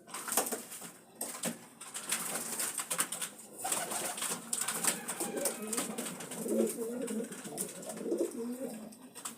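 Pigeons cooing in low, wavering, warbling coos that begin about four seconds in and continue. Before that there are clicks and rustling.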